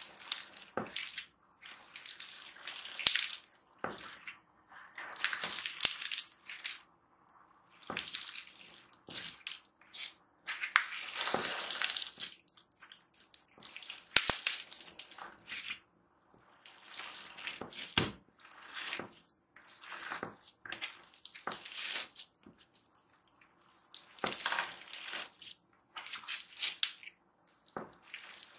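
Pebble slime packed with white foam beads being squeezed and kneaded by hand, crunching and squelching in bursts every second or two with short silent gaps between.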